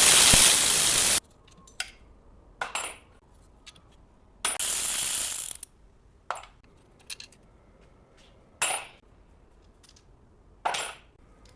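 Unbolting a gearbox from an engine. A power tool runs in two short loud bursts, one ending about a second in and another around the middle, with scattered metallic clinks and clanks of bolts and tools between them.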